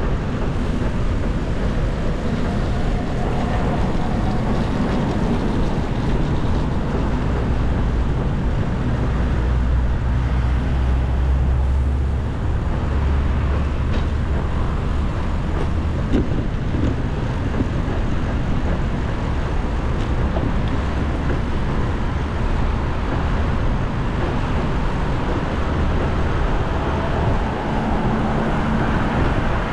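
Steady low rumble of wind on an action camera's microphone during a bicycle ride, mixed with road traffic noise.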